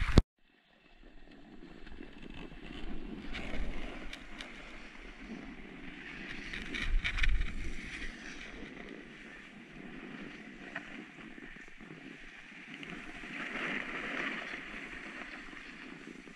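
Snowboard sliding down packed snow, the board's edges scraping and hissing in swells as it turns, with wind rushing over the microphone. The sound starts after a moment of silence at the start.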